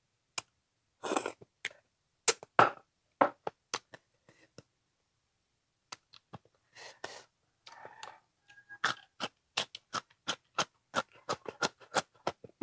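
Close-miked eating sounds: wet chewing, lip smacks and clicks as a frog leg braised in turmeric is bitten and chewed, with a pause of a second or so midway.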